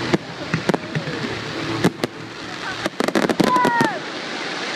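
Aerial fireworks bursting overhead with sharp bangs and crackle, a quick cluster of bangs about three seconds in.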